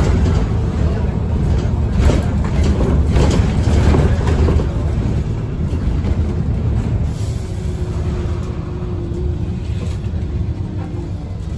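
Agora Line city bus with Voith automatic gearbox heard from inside: the engine and drivetrain drone low and steady, easing off and getting quieter from about halfway as the bus slows, with a faint steady whine over the last few seconds.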